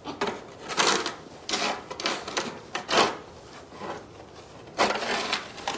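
Crunching and scraping in packed snow, in about six irregular bursts.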